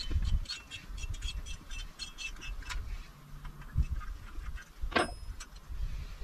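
Small metallic ticks and clicks from a two-stroke motorcycle carburetor being handled as its air screw is backed out by hand, with a sharper click about five seconds in, over a low background rumble.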